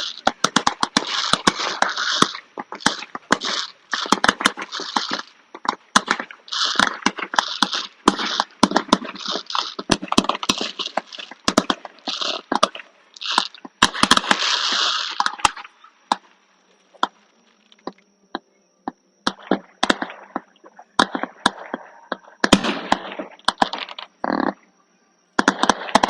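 Fireworks crackling: dense runs of sharp cracks and fizzing crackle in quick bursts with short gaps, thinning to scattered single pops about two-thirds of the way through, over a faint steady high whine.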